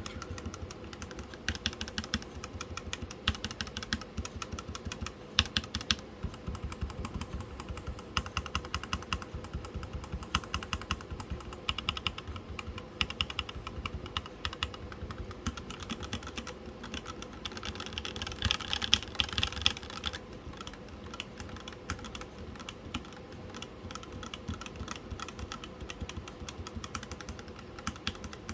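Typing on a mechanical keyboard with DSA-profile keycaps fitted with O-rings, on lubed and filmed Gateron Yellow linear switches: a fast, continuous clatter of keystrokes, somewhat louder about two-thirds of the way in.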